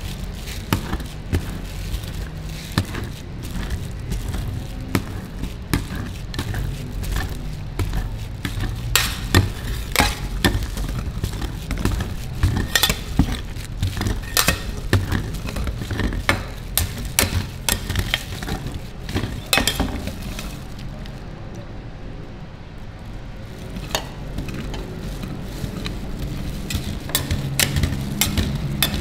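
Two metal spatulas chopping and scraping ice cream on a frozen steel rolled-ice-cream plate: irregular sharp metal taps and scrapes, sometimes several a second, with a calmer stretch about two-thirds of the way through, over a low hum.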